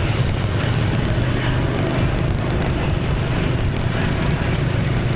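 Steady drone of a motorbike ride in city traffic: the bike's engine running evenly under way, with the hum of surrounding traffic.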